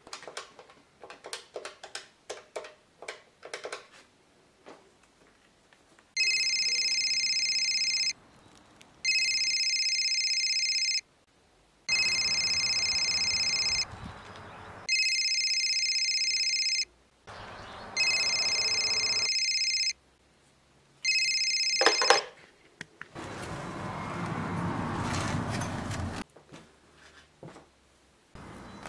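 A quick run of clicks, then an electronic telephone ringing: six high trilling rings of about two seconds each, about a second apart. It ends with a sharp knock and a swelling rush of noise.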